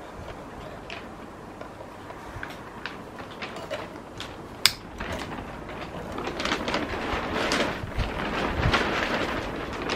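Lighter clicks and small scrapes while the solid-fuel burner of a Mamod SP4 toy steam engine is being lit: a sharp click about four and a half seconds in. From about halfway, a rustling hiss grows louder.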